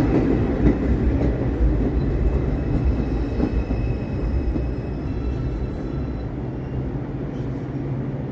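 An NYC Subway 5 train of R142 cars runs along the platform. Its wheels and cars make a steady, dense rumble that slowly fades as the train moves on, with a faint high whine above it.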